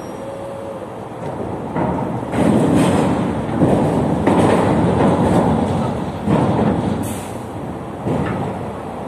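Ship's cargo crane at work over a container hold: heavy metallic running and rattling that builds about two seconds in and eases off after about six seconds, with a couple of sharp metal clanks near the end.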